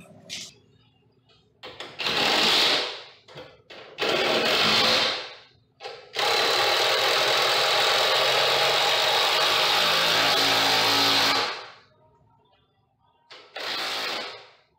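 Cordless drill/driver running in bursts while driving screws or bolts into a garage door opener's ceiling mounting: two short runs of about a second, a long run of about five seconds, then another short run near the end.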